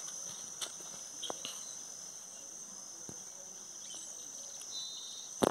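Steady high-pitched chorus of insects such as crickets, with a few faint clicks and a sharp knock near the end.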